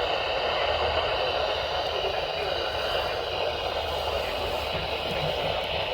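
Steady hiss of radio static from a weather radio receiver.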